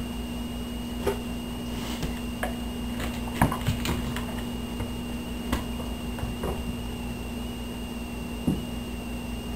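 Scattered soft knocks, bumps and clicks from a Siamese kitten and a Labrador retriever play-fighting on a hardwood floor, busiest about three to four seconds in, over a steady background hum.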